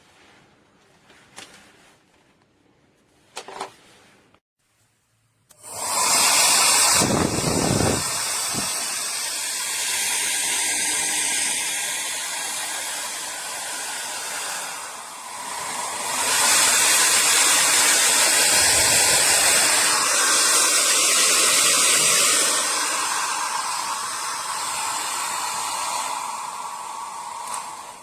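A DEWILY 1800 W ionic hair dryer, after a few faint clicks, comes on about five seconds in and blows with a loud, steady rush of air. Its level swells and dips several times and is loudest for several seconds past the middle, until it stops at the end.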